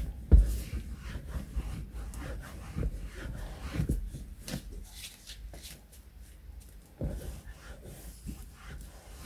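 Cloth being rubbed over a leather car seat to wipe off the cleaner: irregular rubbing and rustling strokes. A few knocks from the hand handling the seat, the loudest just after the start.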